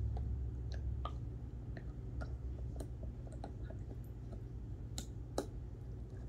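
Small dog chewing a translucent blue bone-shaped chew toy: irregular clicks of teeth on the hard toy, a few a second, with one louder click about five seconds in, over a steady low hum.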